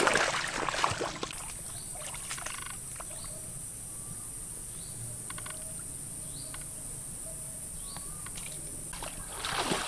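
Water splashing briefly, then a steady high-pitched insect drone that starts about a second in, with a few faint short bird chirps over it; splashing starts again near the end.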